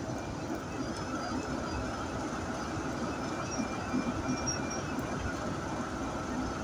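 Diesel locomotive's engine running steadily as it hauls the train slowly along, heard close behind it together with the rumble of the train rolling on the track.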